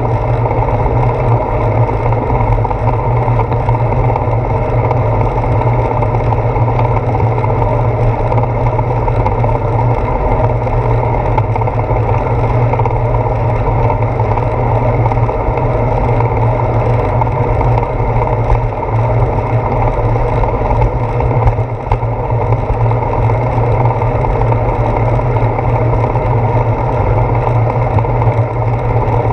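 Steady low rumble of wind and road vibration picked up by a handlebar-mounted GoPro Hero 4 as a bicycle rolls along wet pavement.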